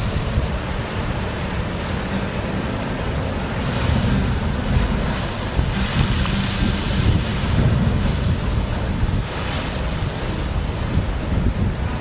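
Sea blowhole in a coral-rock shore spouting seawater, a rushing hiss of spray that swells up several times over the steady wash of surf. Heavy wind rumble on the microphone runs underneath.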